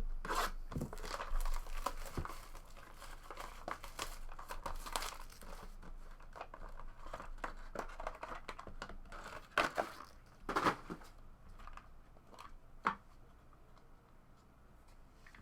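Trading card packaging being torn open and crinkled, with rustling as the cards are handled. The crinkling is densest in the first half, and there are a few sharper clicks about ten seconds in and again a few seconds later.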